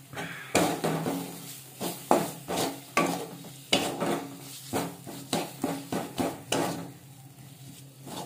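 A spatula scraping and stirring thick frying masala paste around a metal kadai in quick strokes, about two or three a second, easing off a little near the end. The paste sizzles faintly in the oil.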